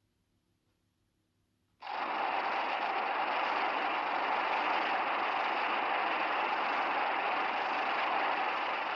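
Monster-film sound effect: a loud, steady rushing noise that cuts in suddenly about two seconds in and holds evenly, with no clear pitch or rhythm.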